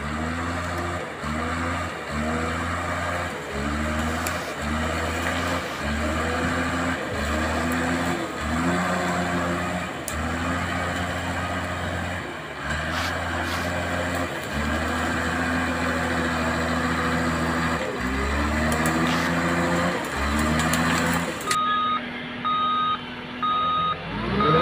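RC bulldozer with a metal gearbox and tracks, its drive whining in short pulses that start and stop about once a second, each rising briefly in pitch as it starts. Near the end a reversing beeper sounds in even beeps, about two a second.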